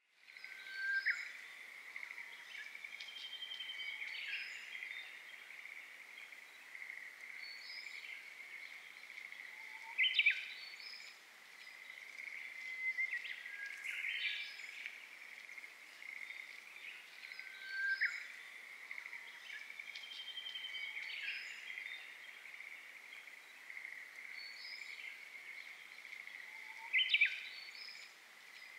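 Birds calling and singing in short phrases every few seconds over a steady high-pitched chorus of insects, an outdoor rural dawn soundscape.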